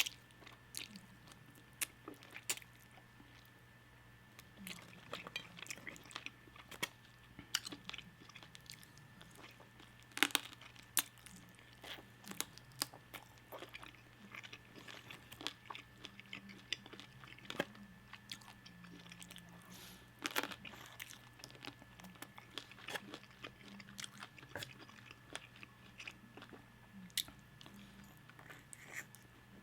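Close-miked chewing and crunching of crispy fried chicken wing flats in hot sauce, with irregular wet clicks and crackles of bites.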